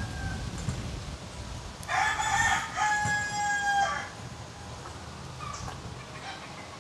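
A rooster crowing once, a loud call of about two seconds a couple of seconds in.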